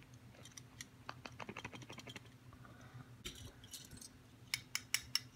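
Light clicking and scraping of a metal measuring spoon against a spice jar and a plastic cup while ground marjoram is scooped and tipped out. A rapid run of small clicks fills the first two seconds or so, and a few sharper taps come near the end, with the spoons on their ring jingling faintly.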